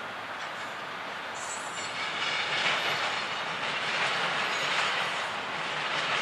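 Double-stack intermodal container well cars rolling past: the steady noise of steel wheels running on the rails, getting louder about two seconds in.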